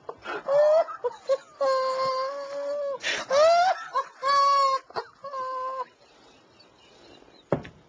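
A man's uncontrollable laughter, stifled into long, high-pitched whimpering squeals. There are about five bouts in the first six seconds, then it dies down.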